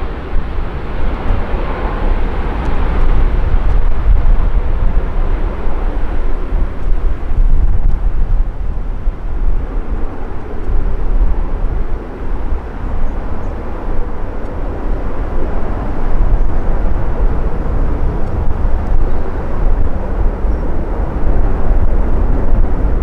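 Boeing 737 MAX's CFM LEAP-1B jet engines at takeoff power, a broad rumble whose higher part fades after the first few seconds as the jet climbs away. Strong wind gusts buffet the microphone throughout.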